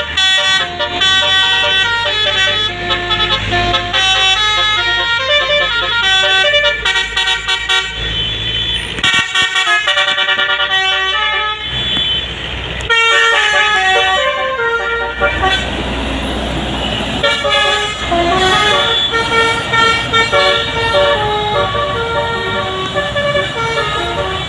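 Bus 'basuri' telolet musical air horn playing a melody of held notes that change pitch in steps. A passing bus's engine and road noise come up around the middle.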